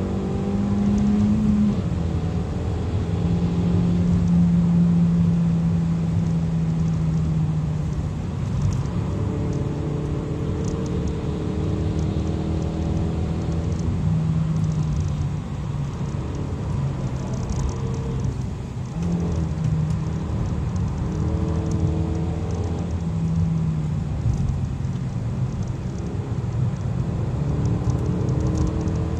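Kia cee'd GT's 1.6-litre turbocharged four-cylinder engine heard from inside the cabin under hard driving. Its note holds, then drops or climbs to a new pitch again and again with throttle and gear changes.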